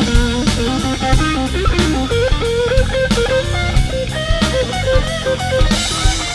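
Blues-rock band recording: an electric guitar playing a lead line full of bent notes over drum kit and bass guitar, with a cymbal crash near the end.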